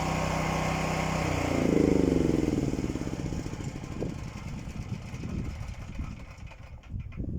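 An engine runs steadily, then rises in pitch and loudness about a second and a half in and fades away over the next second. Scattered short knocks follow.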